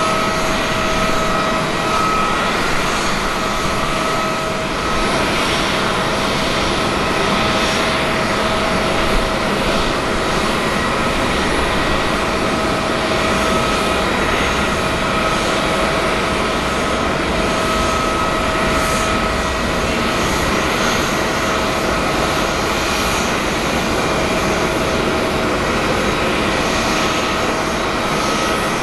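Jet airliner engines running steadily: a constant wide rushing hum with several steady whine tones in it.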